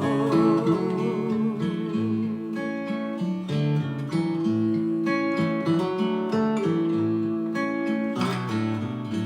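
Acoustic guitar playing an instrumental break in a slow folk song, picking single notes over a bass line. A held sung note with vibrato fades in the first second, and singing comes back in near the end.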